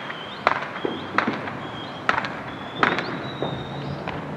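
Fireworks going off: four or five sharp pops at uneven spacing, with a faint high whistle coming and going between them.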